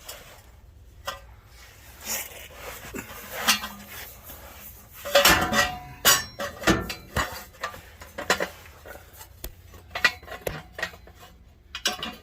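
Irregular metallic clinks and clanks of steel exhaust pipe and loose nuts and bolts being handled and fitted, the busiest and loudest knocks about five to seven seconds in.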